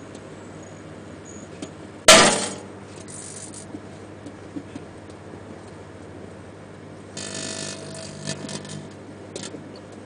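Microwave oven humming steadily as it runs with an incandescent light bulb inside. About two seconds in there is one sharp, loud crack as the bulb's glowing gas discharge gives way. A stretch of buzzing crackle from arcing follows later, with a few loose clicks near the end.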